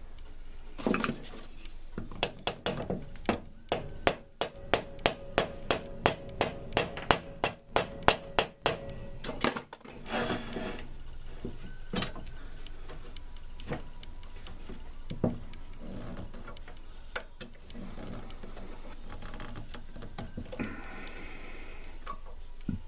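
A rapid run of sharp knocks and clacks, about two or three a second, over the first half, then a few scattered knocks.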